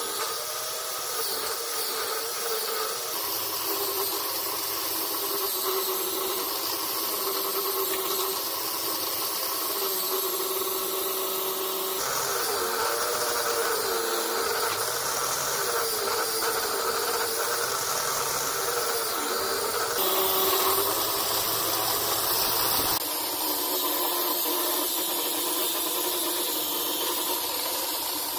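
Angle grinder running steadily with a wire cup brush that scrubs along a square steel tube, stripping rust and scale: a dense metallic hiss over the motor's whine, which wavers in pitch. The sound changes abruptly a few times.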